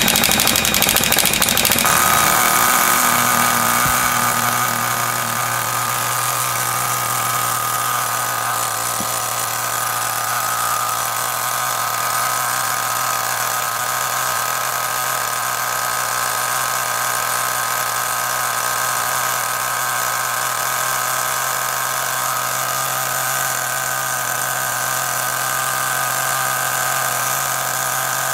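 HPI Firestorm nitro truck's small glow-plug engine running steadily at tickover while still cold. Its idle screw has just been turned down from a setting that was far too high. For about the first two seconds a higher whine sits over it and then stops, and the engine goes on at an even pitch.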